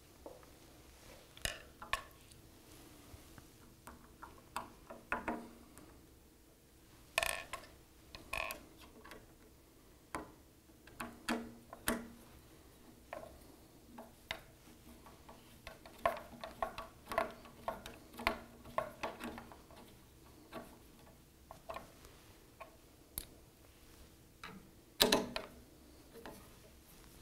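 Irregular small metal clicks and ticks from a hex driver and the bolts and grub screws of a DRO display-arm bracket being fitted and tightened against the lathe's sheet-metal tray, the loudest clack near the end.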